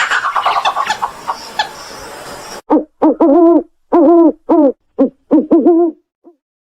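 Owl hooting: a quick run of about nine short, pitched hoots in the second half, after a stretch of rough, hissing noise.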